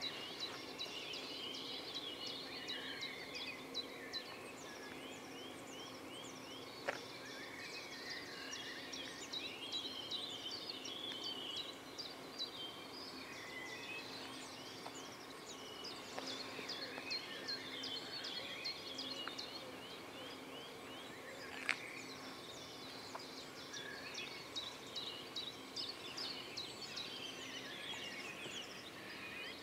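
Songbirds chirping and trilling over a faint steady hum. Two sharp clicks stand out, about seven seconds in and again about twenty-two seconds in.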